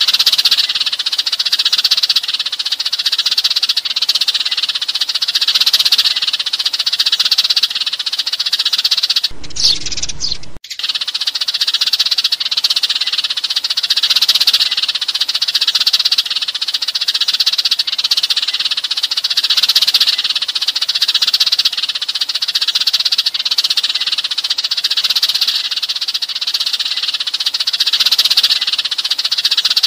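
A flock of Eurasian tree sparrows chirping and chattering densely and without pause, a sparrow flock-call used to lure sparrows in. About ten seconds in there is a brief break, like a splice in the looped recording, and then the chatter resumes.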